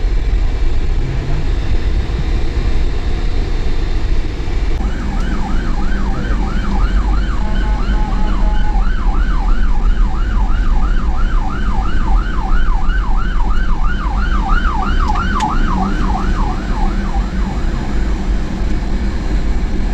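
Emergency-vehicle siren in a fast yelp, rising and falling about two to three times a second, starting about five seconds in and stopping shortly before the end. It is heard inside a truck cab over steady engine and road noise.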